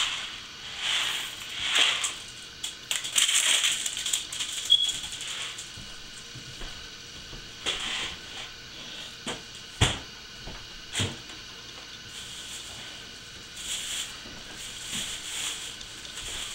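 Crinkling and rustling of packaging in several spells, the last a white plastic bag being handled and unwrapped near the end, with two sharp knocks about ten and eleven seconds in.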